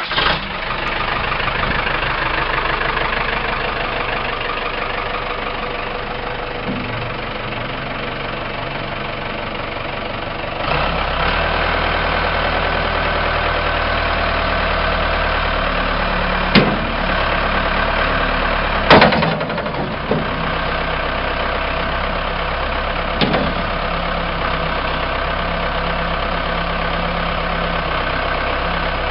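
Case 580M backhoe loader's diesel engine idling steadily just after starting, its note turning deeper and fuller about a third of the way in. A few short sharp knocks sound over the idle in the second half.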